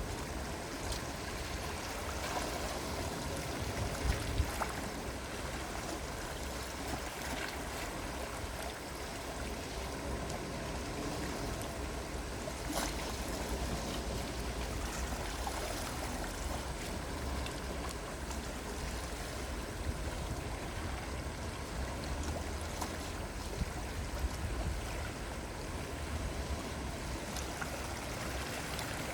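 Calm sea waves washing gently in a steady hiss, with a low rumble of wind on the microphone.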